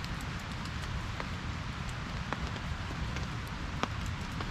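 Steady rain pattering, with scattered sharp ticks of drops.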